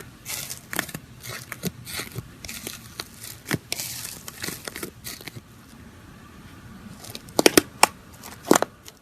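Slime being squeezed and worked by hand, giving a run of small crackles and clicks, then four or five sharp pops near the end.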